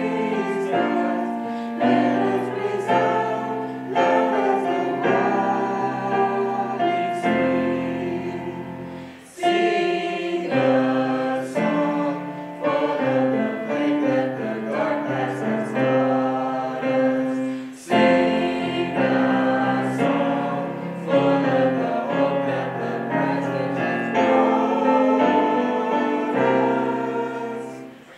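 Youth choir of mixed voices singing a song in harmony, held chords changing every second or so. The singing briefly drops off between phrases about nine seconds and eighteen seconds in, and again near the end.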